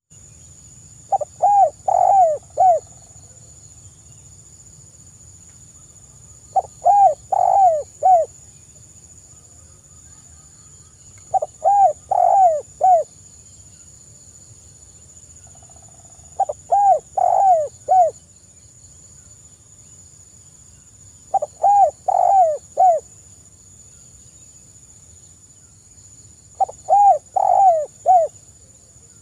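Spotted dove cooing: six repeated phrases of about four coos each, roughly every five seconds.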